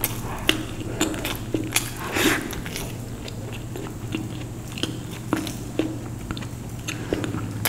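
A person eating close to the microphone: chewing and biting with irregular small clicks and crunches, and a denser crunch about two seconds in.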